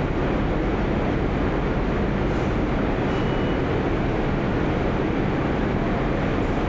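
Steady rumble of a New York City subway train in the station, with a brief faint high squeal about three seconds in.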